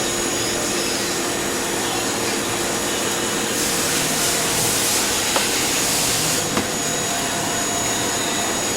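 Steady whirring machine noise, with a rush of high hiss for about three seconds in the middle and a couple of light clicks.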